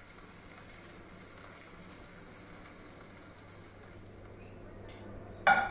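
Quiet room noise with a steady low hum, and one short, sharp sound near the end that is the loudest thing.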